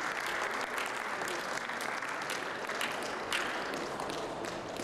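Audience applauding steadily, a crowd clapping.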